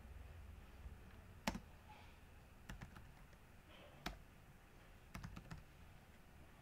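Faint computer keyboard keystrokes: a handful of separate, sharp clicks, the loudest about a second and a half in, over a low steady room hum.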